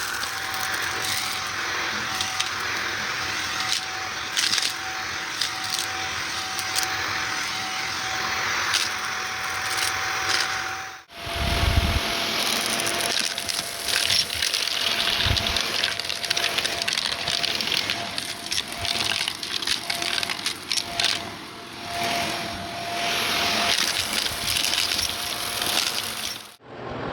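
Shark vacuum cleaner running with a steady motor whine, sucking up gritty debris with many crunchy, crackling clicks. About eleven seconds in, the sound breaks off briefly and comes back with the motor tone slightly lower.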